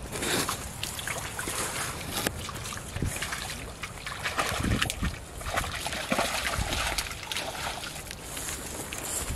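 Irregular splashing and sloshing of water as a hooked fish struggles in a shallow, muddy pool and is pulled out on a bamboo pole line.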